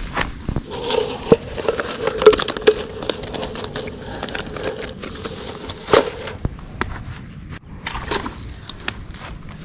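Rustling and irregular clicking of a black mesh fish keep-net being handled and pulled by its cord on grassy ground, with a sharp louder knock about six seconds in.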